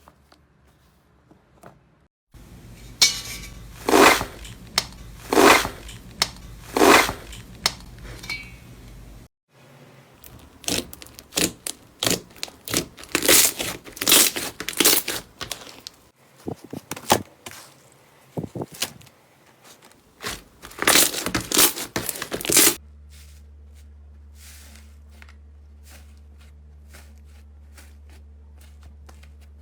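Slime being pressed and handled, giving a string of short, sharp crackling and crunching bursts that change in pattern at cuts about two and nine seconds in. For the last several seconds there is only a steady low hum with faint clicks.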